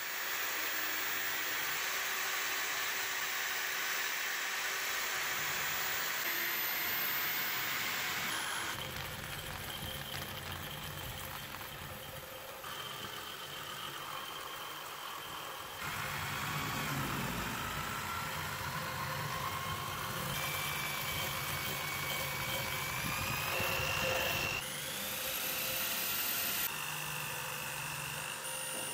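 Small power tool spinning a wire brush wheel against a rusty lock's steel plate: a steady motor whir with wire scrubbing on metal. The sound shifts abruptly every few seconds, and a whine rises in pitch about two-thirds of the way through.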